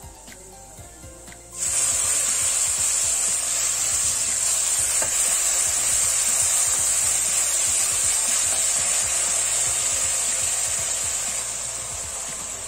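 Sizzling hiss as cooked mustard greens (sarson ka saag) hit a hot ghee tadka of fried garlic, onion and chilli in a steel kadai. It starts suddenly about a second and a half in and slowly dies down as the saag is stirred in.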